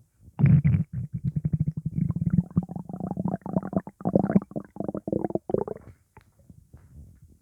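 Human stomach rumbling and gurgling with gas, a sign of an upset stomach: a long run of rapid bubbling pops that dies away about six seconds in.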